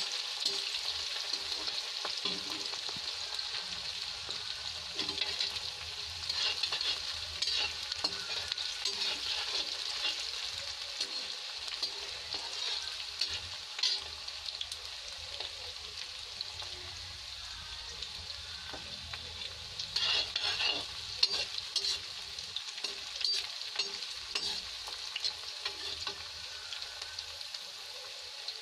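Sliced onion, garlic and green chillies sizzling and crackling steadily in hot oil in a kadhai, being fried until lightly browned. A slotted spatula stirs them now and then, with a brief cluster of stirring clicks about twenty seconds in.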